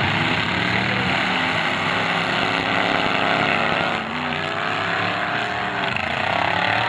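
Several demolition derby cars' engines revving hard at once, their pitches rising and falling over each other as the cars spin their wheels in the dirt.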